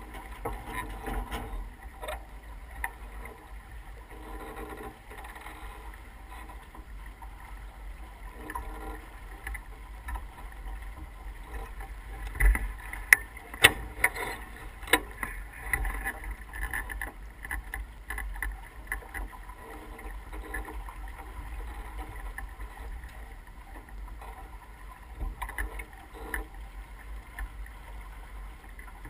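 S2 9.1 sailboat under sail: a steady rush of wind and water with a low rumble, a few sharp knocks about halfway through, and faint crew voices now and then.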